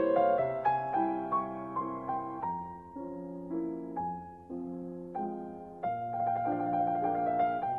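Solo piano playing a slow classical piece, with notes and chords struck one after another and left to ring.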